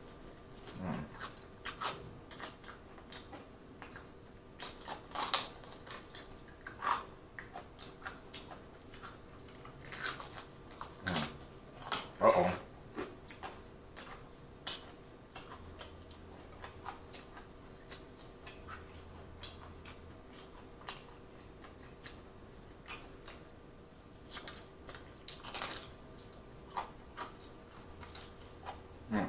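Biting into and chewing crunchy fried chicken: irregular crisp crunches and crackles of the breaded skin, with wet chewing and mouth sounds in between.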